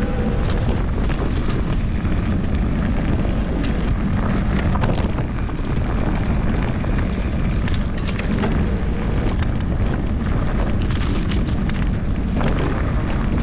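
Wind buffeting the microphone of a camera on a mountain bike at speed, a steady loud rush, with short rattles and knocks from the bike running over rough trail.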